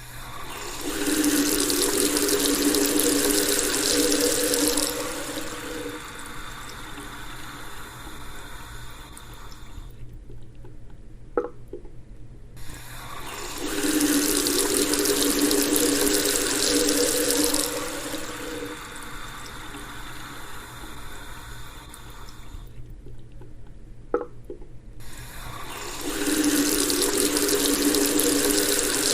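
Bathroom sink faucet running at high flow into the basin, a few seconds loud and then several seconds softer, before stopping. The cycle comes three times, with a short gap holding a single sharp click after each of the first two.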